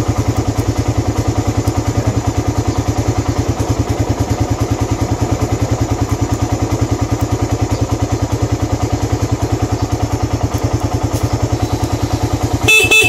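Suzuki Raider 150's single-cylinder four-stroke engine idling steadily, with an even, rapid exhaust pulse. Near the end a short, loud horn beep sounds over it.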